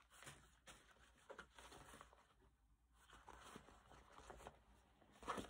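Near silence with faint, scattered rustles and light ticks of a cap and clothing being handled close to the microphone, with one slightly louder brush about five seconds in.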